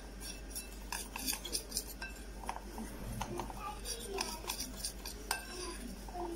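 A spoon stirring dry cocoa powder, sugar and cornflour in a glass bowl, with irregular clinks and scrapes against the glass.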